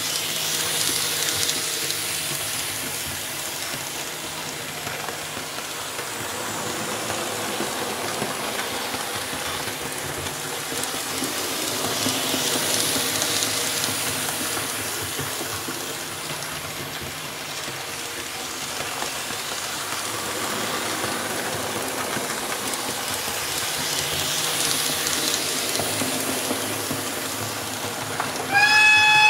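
Model trains running around oval track: a steady rumble of wheels on rail with a faint motor hum, swelling and fading about every twelve seconds as a train passes close by. A little before the end, a loud, high horn tone starts abruptly.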